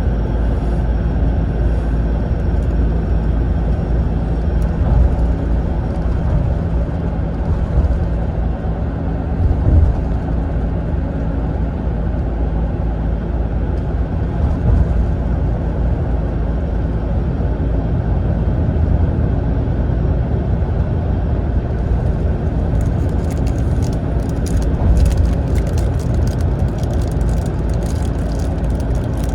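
Mitsubishi Fuso Aero Ace coach heard from inside the passenger cabin while cruising. Its diesel engine drones steadily under tyre and road noise, with a single thump about ten seconds in and faint crackling rattles over the last few seconds.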